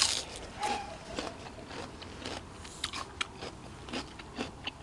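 Close-miked eating: a loud bite right at the start, then crunchy chewing with irregular crisp crunches and clicks.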